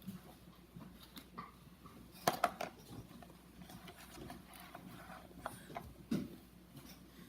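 Light clicks and taps from a plastic glue bottle and bowl being handled while glue is poured, with two sharper clicks a little over two seconds in and another about six seconds in.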